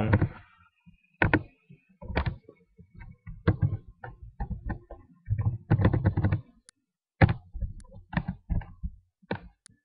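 Computer keyboard keystrokes, typed at an irregular pace in short runs with brief pauses between.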